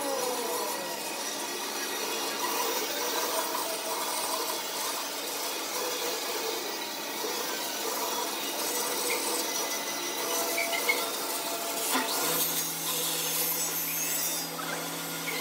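A tool scraping and cutting wood in a steady, rasping rub. A motor hum joins in about twelve seconds in.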